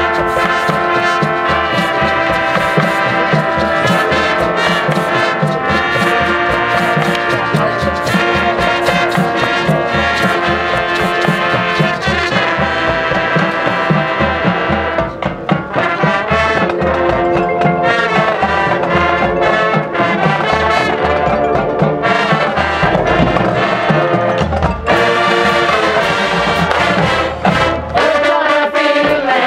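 Marching band playing live: a loud brass passage over marching drums and front-ensemble marimbas, briefly softer about halfway through.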